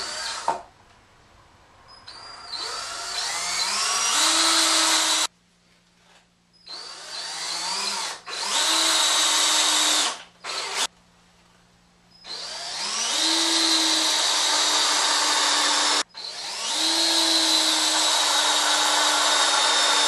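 Power drill driving 3-inch exterior screws through a 2x4 rung into a 2x8 support. There are four runs of a few seconds each with short pauses between. Each starts with a rising whine as the motor spins up, then runs steady.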